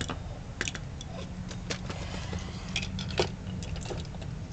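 Scattered small plastic clicks and taps from a Transformers robot action figure being handled on a desk, over a steady low hum.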